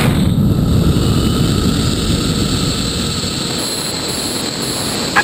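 Steady, rushing roar of a rocket in powered ascent with its motor burning, picked up by a camera riding on the rocket's body.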